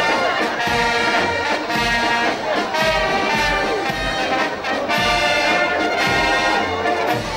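Marching brass band playing in a street parade, trumpets and trombones carrying the tune over low, regular beats.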